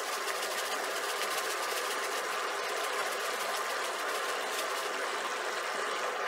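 Curry sauce simmering in a stainless steel pan: a steady, dense fine bubbling crackle.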